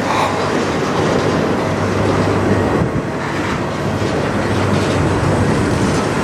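Freight cars of a slow-moving manifest train rolling past close by: steady, loud wheel and car noise on the rails.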